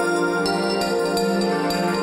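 Instrumental background music with sustained notes, the higher notes changing about every half second.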